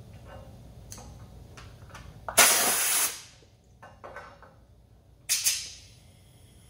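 Pneumatic piston filler cycling: a loud burst of compressed-air hiss lasting under a second, about two and a half seconds in, then a second, shorter hiss that fades away a little after the five-second mark. A few light clicks of the bottle being set into the holder come before the first hiss.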